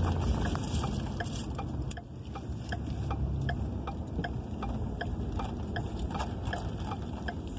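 Car turn-signal indicator ticking steadily, about three ticks a second, over the low hum of the car driving. The car is signalling a right turn as it turns.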